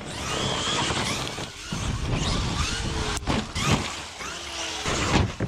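Large electric RC monster truck running hard on dirt: the brushless motor's whine rising and falling as it speeds up and lets off, over tyres scrabbling on dirt and gravel. A few sharp knocks come around the middle and near the end as the truck lands and tumbles.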